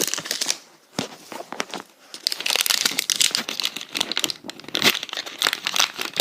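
Plastic blind-bag packet crinkling and tearing as it is opened by hand. It starts as scattered crackles, then turns to dense, busy crinkling from about two seconds in.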